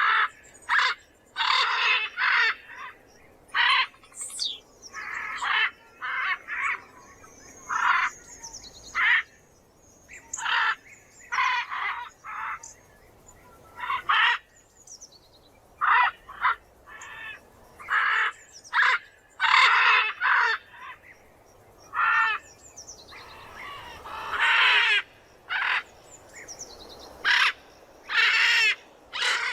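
Macaw squawking over and over: short harsh calls in irregular series, about one a second, with a longer drawn-out call about three-quarters of the way through.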